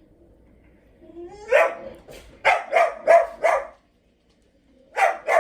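A dog barking: a rising yelp about a second in, then four quick barks in a row, and two more near the end.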